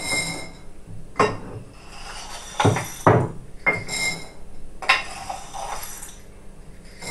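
Dry whole peas scooped by hand from a ceramic bowl and dropped into a glass jar: irregular rattling and clinking against the bowl and jar, with short glassy rings at the start and about four seconds in.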